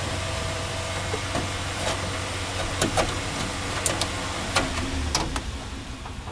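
Smoke machine for a vacuum-leak test running, a steady low hum with an even hiss of air pushing smoke into the brake booster's intake line. Several sharp clicks and knocks come through the middle, and the hum and hiss fall away near the end.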